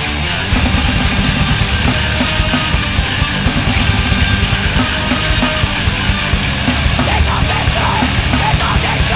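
Loud, heavy hardcore punk music: distorted electric guitars over fast, dense drumming.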